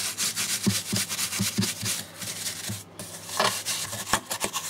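Soft paintbrush dabbing and brushing matte varnish into a sand-sprinkled background surface: a quick run of short brushing strokes, several a second, with a brief pause about three seconds in.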